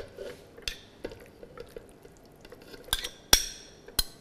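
A spoon scraping and knocking against a bowl and a plastic blender chopper jug as diced raw chicken breast is tipped in: several sharp clinks and knocks with soft handling noise between, the loudest a little after three seconds in with a short ring.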